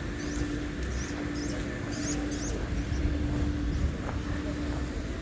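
Outdoor ambience: a steady low rumble with a faint hum that comes and goes, and a bird chirping several short rising notes in the first half.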